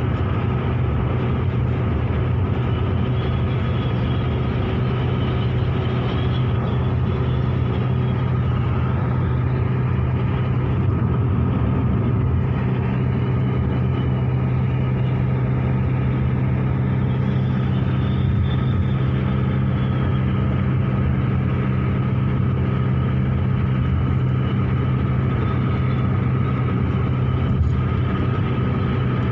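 A motor vehicle engine running at a steady speed, a constant low hum with road or cabin noise over it.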